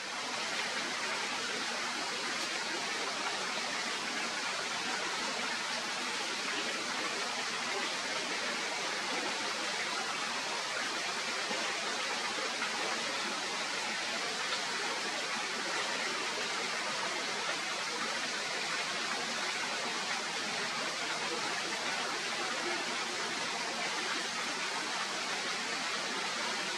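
Steady, even rushing hiss, like running water, with no distinct calls or knocks in it.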